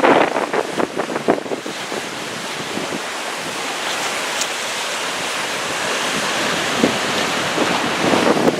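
Wind buffeting the microphone in choppy gusts, easing about two seconds in into a steady rushing wash that slowly grows louder, with gusts returning near the end.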